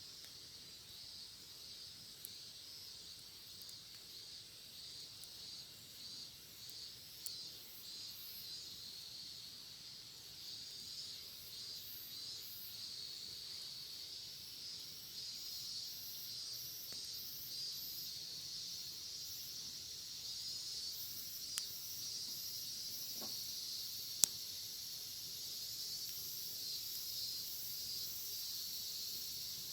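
Cicadas singing in a steady, pulsing chorus that grows somewhat louder, with a few sharp pops from a wood fire.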